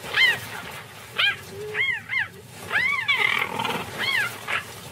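Cheetahs fighting: a run of about six short, high-pitched yowls, each rising and then falling in pitch, with a rough snarl in between.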